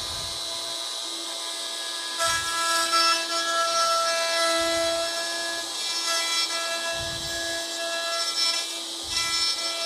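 DeWalt router running steadily, then from about two seconds in cutting into wood, getting louder and rougher with its pitch shifting under load.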